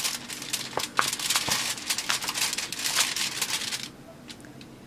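Crackling and crinkling as a MARUKO silicone popsicle mold is flexed and peeled away from a frozen kulfi bar: a rapid run of small crackles that stops about four seconds in, as the bar comes free.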